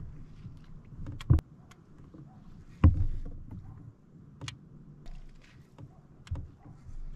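Knocks and thumps on a fishing kayak's hull as a standing angler shifts his footing and works the rod, over a faint low hum. About four sharp knocks, the loudest near three seconds in.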